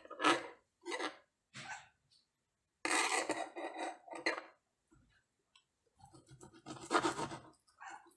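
Irregular scratchy rustling and scraping noises in short bursts, with longer stretches about three seconds in and again about seven seconds in.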